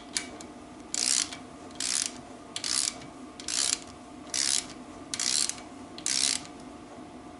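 Hand socket ratchet snugging down the steel lock nuts on a BSA B25 connecting-rod cap before they are torqued: seven short runs of pawl clicking, about one a second, as the handle is swung back between pulls.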